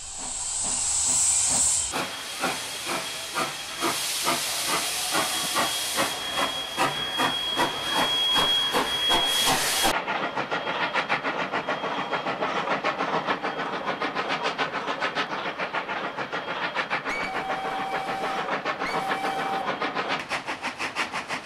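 A 141 R steam locomotive hisses steam, then its exhaust beats in a quick, regular rhythm that picks up pace about ten seconds in. Near the end the whistle gives two short notes.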